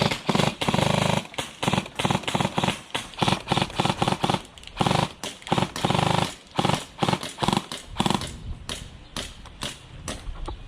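Airsoft guns firing to empty their magazines: rapid bursts on full auto mixed with single shots, a quick irregular run of sharp cracks.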